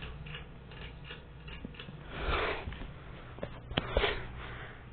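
Hunter 52-inch ceiling fan running on its low speed with a steady low hum. A brief rush of noise comes about two seconds in, and a few sharp clicks about three and a half seconds in.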